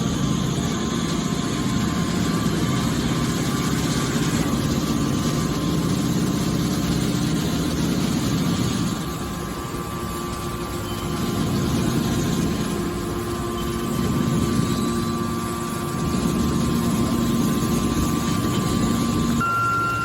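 Hydraulic scrap baler running: a steady machine drone from its pump and motor, easing off a little twice in the middle before coming back up.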